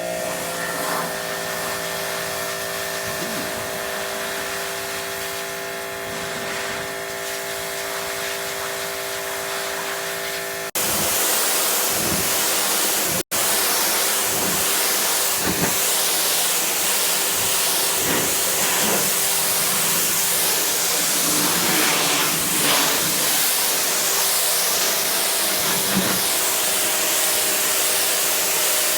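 Ryobi 2000 psi electric pressure washer spraying: a steady hiss of the water jet over a steady motor hum, turning louder and harsher about ten seconds in, with a brief cut-out a few seconds after that.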